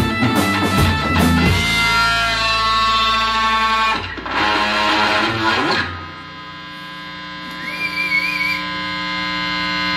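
A live indie rock band of electric guitars, bass and drums striking chords and letting them ring out, with another strum about four seconds in. About six seconds in the playing drops away to a quiet sustained guitar drone over amplifier hum, with a brief wavering high feedback tone.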